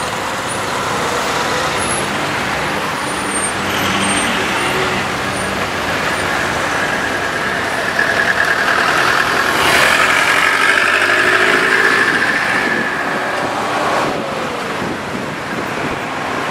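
Heavy road traffic: cars, trucks and buses running in a congested queue. It grows louder about halfway through as a city bus passes close, with a high steady whine over the traffic for several seconds.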